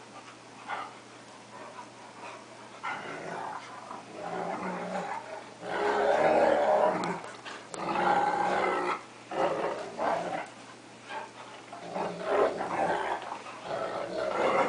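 Dogs, a wolf–Akita mix and a cocker spaniel, growling in repeated rough bouts while they play-fight, loudest around the middle. It sounds fierce but is play.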